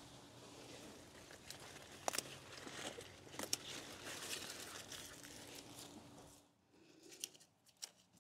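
Dead hosta leaves rustling and crunching as they are pulled and torn out by hand, with a few sharp clicks, the loudest about two and three and a half seconds in. The rustling dies down after about six seconds, leaving scattered clicks.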